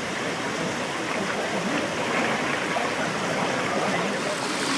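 Steady rushing noise, like running water, with faint voices underneath.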